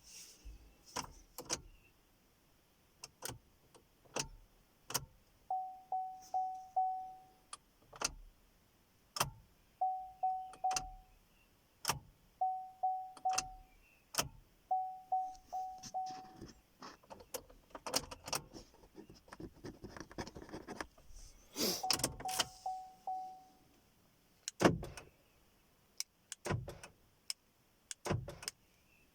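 Vauxhall Astra K's dashboard warning chime beeping in short runs of three or four, repeated several times, among many sharp clicks, in a car that will not start and shows an ESC service warning.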